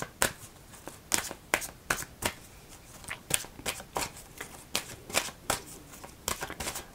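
A deck of oracle cards being shuffled by hand: an irregular run of sharp card snaps and slaps, about two or three a second.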